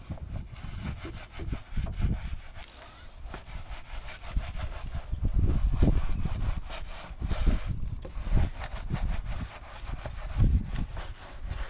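Irregular back-and-forth rubbing and scrubbing with low, dull thumps that come and go.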